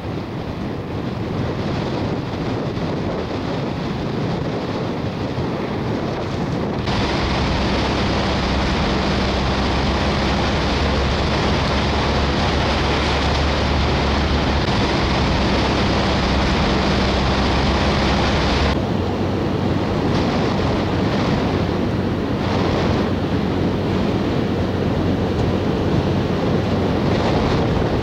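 Wind blowing hard on the microphone, over the rush of surf breaking on a beach. The sound changes abruptly about 7 s and again about 19 s in.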